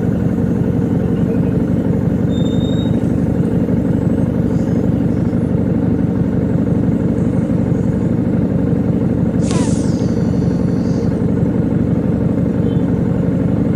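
Motorcycle riding at a steady pace: an unbroken low rumble of engine and wind noise on the microphone. About two-thirds of the way through, a short high squeal falls quickly in pitch, then holds as a thin high tone for a second or so.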